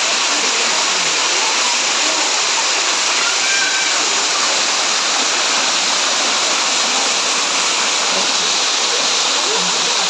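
Steady, loud rush of a small waterfall, its water cascading and sheeting over rock slabs close by.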